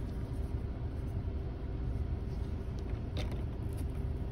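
Steady low rumble and hum of the car's cabin, with one faint plastic click about three seconds in as the dome-light lens is handled.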